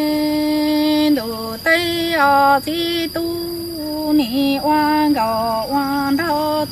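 A woman singing Hmong kwv txhiaj unaccompanied: one long held note, then a run of short notes stepping up and down, several of them dipping in pitch at their ends.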